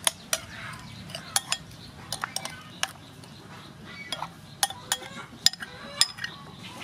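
A metal spoon stirring a tamarind sauce in a ceramic bowl, clinking sharply against the bowl's side over a dozen times at irregular intervals.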